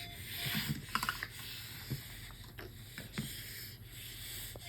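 Soft handling, rubbing and clicking noises of hands and Play-Doh, busiest about a second in. At the very start, two short beeps from a bedside monitor close out a three-beep alarm.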